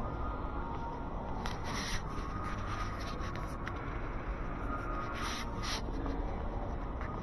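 Steady low rumble of indoor mall ambience while walking, with four short scuffing rubs, a pair about a second and a half in and another pair around five seconds in.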